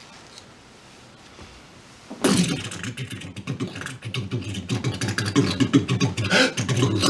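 A man imitating hard rock with his mouth, beatbox style: rhythmic mouth percussion full of sharp clicks over a low, growling pitched tone. It starts abruptly about two seconds in, after a faint pause.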